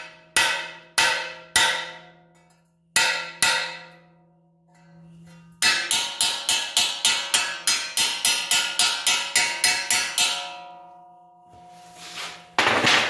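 Hammer blows on steel, each ringing metallically, as a dimple is tapped into a sheet-steel patch panel over a center-punch die. A few spaced strikes come first, then a steady run of quicker blows, about four or five a second, for around four seconds, and a final single blow near the end.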